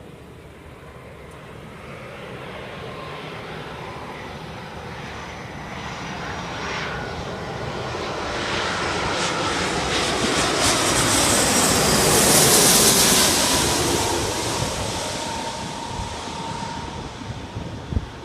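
Jet airliner passing close by on approach: its engine roar builds, is loudest about two-thirds of the way through, then fades. Whining engine tones fall in pitch as it goes past.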